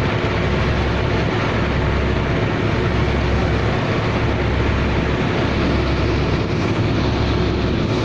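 Boat engine running steadily: a continuous low rumble with a faint steady hum over it.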